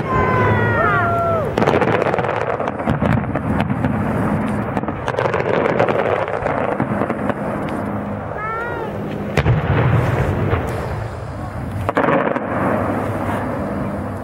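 Aerial fireworks going off: repeated bangs and crackling shell bursts. Several falling whistles sound at the start and again about eight and a half seconds in.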